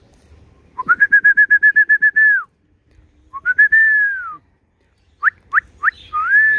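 Clear, loud whistling: a quick run of about a dozen short notes, roughly eight a second, ending in a falling glide, then a single whistle that rises and falls, then three short upward chirps and a last arched whistle that slides down.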